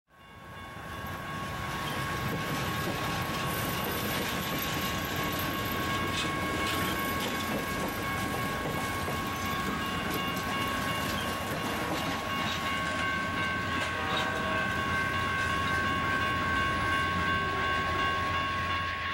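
Amtrak Southwest Chief passenger train rolling past, Superliner coaches and then private cars on the rear. There is a steady rumble of wheels on rail with light clicking over the rail joints, and a steady high-pitched ring runs through it.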